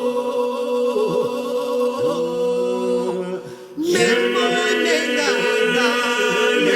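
Voices singing an Albanian folk song, a steady held drone under a wavering, ornamented melody line; about four seconds in a louder, brighter voice comes in over the drone.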